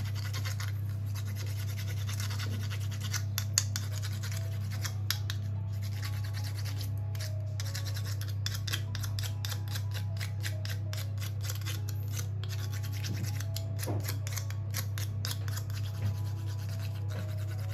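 Whole nutmeg rasped over a small metal grater in quick, repeated scraping strokes, over a steady low hum.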